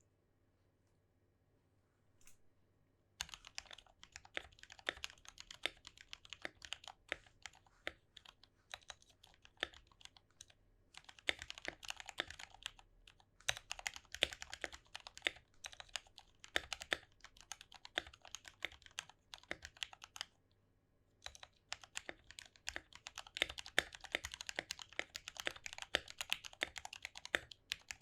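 Custom 65% mechanical keyboard with lubed Gateron Black linear switches in an acrylic sandwich case being typed on: a fast run of key strokes that starts about three seconds in, pauses briefly about two-thirds of the way through, then resumes.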